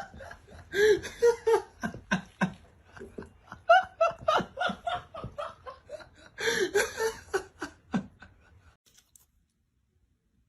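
A person laughing in a string of short bursts, which stop a little before the end.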